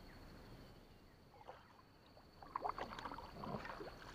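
Kayak paddle strokes: water splashing and dripping off the blade, with small clicks, starting about two and a half seconds in after a faint, quiet stretch.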